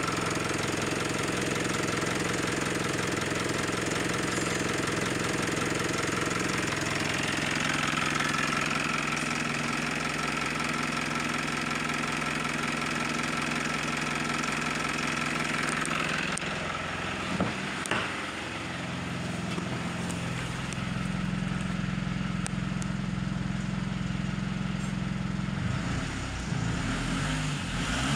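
Mitsubishi ASX's 2.2 L turbo diesel engine idling steadily, heard first at the open bonnet and then from inside the cabin. Two sharp knocks come about two-thirds of the way through, and near the end the engine begins to rev up and down.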